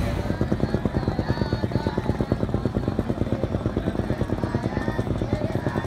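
Small boat engine chugging steadily with a fast, even beat, heard from on board.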